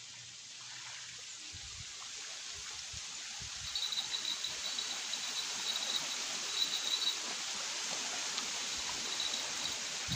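Night-time riverbank ambience: a steady hiss that slowly grows louder, with a high, pulsing trill joining in about four seconds in.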